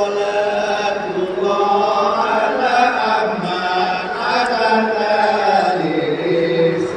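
A man's solo voice chanting selawat (Islamic praise verses), sung in long, drawn-out melodic lines that slowly rise and fall.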